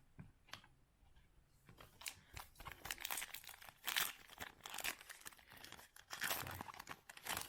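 Foil wrapper of a baseball card pack being torn open and crinkled: a few light clicks in the first second, then irregular tearing and crackling from about two seconds in.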